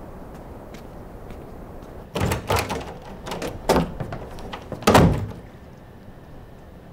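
A wooden door being knocked on and opened: several knocks and rattles from about two seconds in, with the loudest thud about five seconds in.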